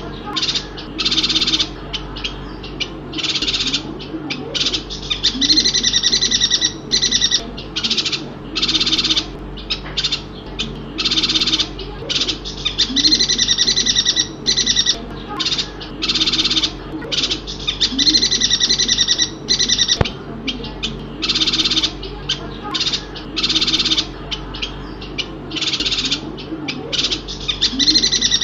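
Bornean yuhina calling over and over: short, high calls about once a second, alternating with longer phrases of about two seconds.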